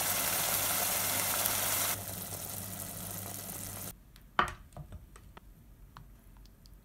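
Keema curry simmering in a pot, a steady bubbling hiss over a low hum. About four seconds in it cuts to quiet, and a ladle knocks once against a ceramic plate, followed by a few soft clicks as curry is spooned onto it.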